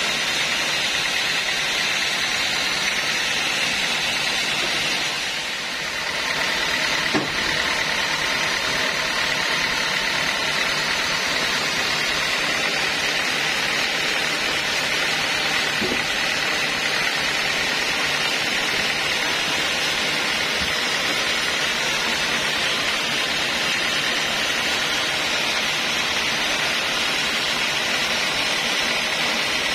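Homemade band sawmill running steadily with the blade turning free, not cutting. There is a single wooden knock about seven seconds in.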